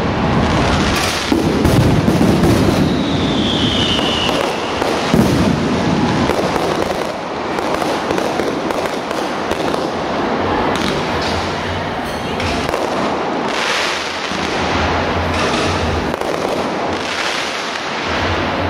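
Aerial fireworks bursting, with rapid crackling pops and a short falling whistle about three seconds in. The heavy booms and dense crackle of the first few seconds thin out into scattered crackles for the rest.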